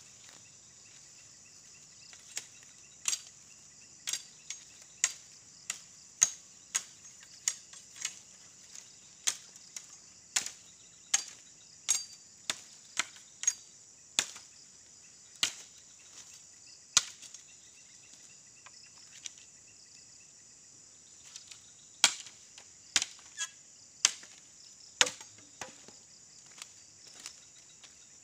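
Machete chopping at a bamboo pole: a long run of sharp, separate chops, roughly one every half second to second, pausing for a few seconds about two-thirds of the way through. A steady high insect drone runs underneath.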